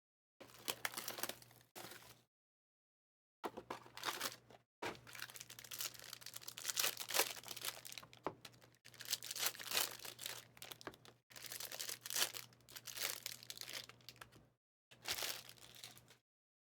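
Plastic wrapping on sealed trading card packaging being torn open and crinkled, in several bursts that cut off abruptly.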